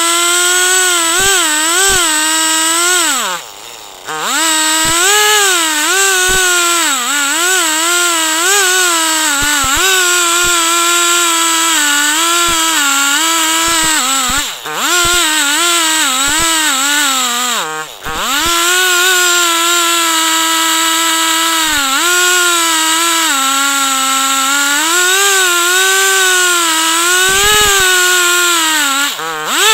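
Two-stroke chainsaw running at high revs in a chainsaw mill, ripping a log lengthwise into planks. Its pitch wavers steadily as the bar loads up in the cut, and the revs dip sharply and come back up four times.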